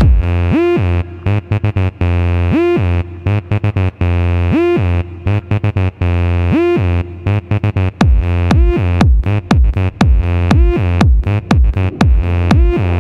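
Electronic dance music backing track. A synthesizer note slides up about every two seconds over a steady deep bass, and the sound is chopped into fast stutters.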